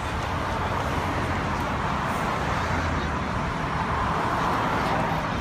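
Steady noise of a slow line of police cars and other vehicles driving past, with the voices of a roadside crowd mixed in.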